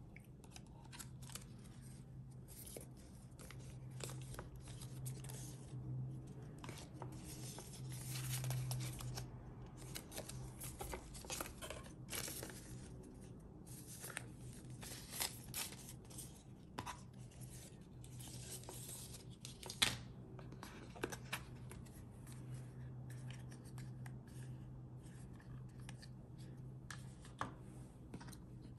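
Paperboard and paper packaging being handled during an Apple Watch unboxing: cardboard and paper sliding, rustling and scraping, with scattered light taps and one sharper knock about two-thirds of the way through. A faint low steady hum runs underneath.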